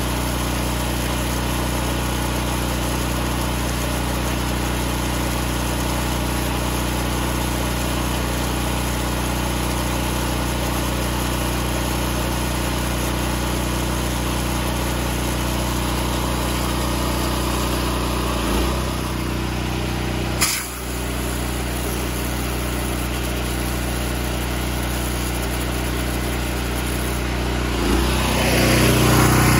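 Honda GX390 single-cylinder engine of a direct-drive pressure washer running steadily. Its note shifts a little about two-thirds in, there is a sharp click a couple of seconds later, and it gets louder with more hiss near the end.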